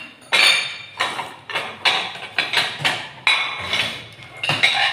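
Eating with chopsticks from ceramic bowls: a string of about ten short, noisy slurps from a bowl held to the mouth and clicks of chopsticks against the bowls, the loudest near the start.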